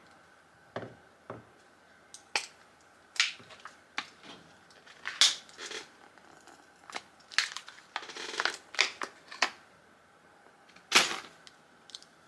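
Plastic shrink wrap being torn and peeled off a lithium battery's cell pack, giving irregular crinkles, crackles and sharp snaps. A denser stretch of crinkling comes about two thirds of the way in.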